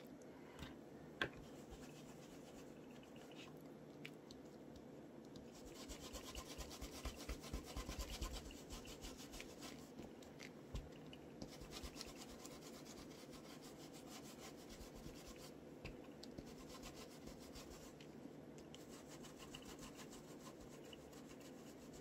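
Faint, fast scrubbing of an ink blending brush worked in small strokes over a plastic stencil onto paper, pushing ink through the stencil's openings; the strokes grow louder from about six to ten seconds in.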